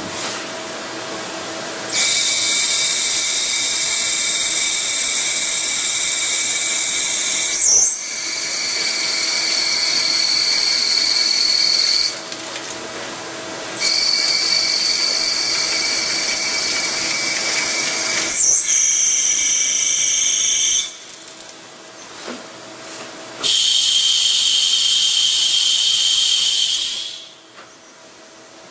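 Hardinge T42 CNC lathe machining: a series of cuts lasting a few seconds each, every one a high-pitched whine over a hiss, with the pitch shifting from cut to cut and short pauses between them, over a steady low hum from the machine.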